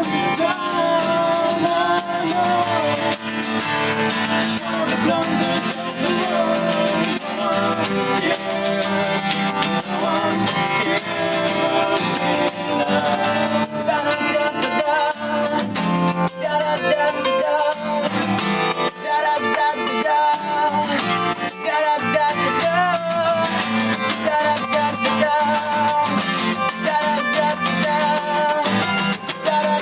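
Unplugged live band playing an instrumental passage of a rock song: strummed acoustic guitars with a melodic lead line over a steady rattling hand percussion beat.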